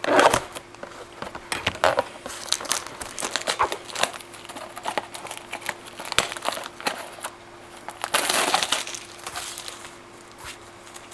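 Plastic shrink wrap on a cardboard trading-card box being cut with scissors and pulled off, with irregular crinkling, rustling and sharp clicks as the box is handled. A louder stretch of crinkling comes about eight seconds in.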